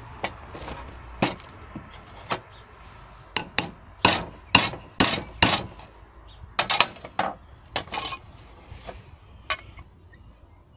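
A dozen or so sharp, irregular metal knocks as a freshly welded steel flat-bar and round-bar bracket is struck to straighten it; the weld heat has warped it into a slight bend.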